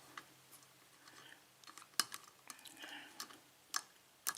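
Lock pick and tension wrench working the pins of a 5-pin Yale-type pin tumbler cylinder during single-pin picking: faint metallic scraping and ticking, with three sharper clicks.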